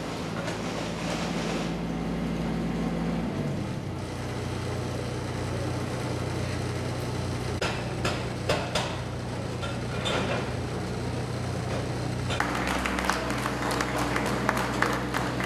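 Kubota mini excavator's diesel engine running steadily, its pitch shifting about three seconds in, with a few sharp knocks of steel on rock as the bucket breaks through the last of the tunnel face. Applause starts about twelve seconds in.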